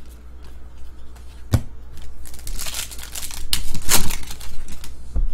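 Foil wrapper of a Topps WWE trading-card pack crinkling and tearing open, loudest about four seconds in, with a couple of sharp clicks from handling.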